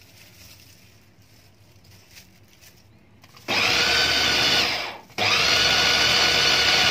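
Electric mini food chopper running in two bursts starting about three and a half seconds in: a run of about a second and a half, a brief stop, then a longer run, its blade grinding onion, ginger, garlic, green chillies and yogurt into a paste.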